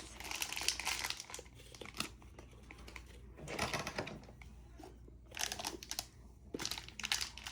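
A small toy's packaging being crinkled and torn open by hand, in several short rustling bursts with pauses between them.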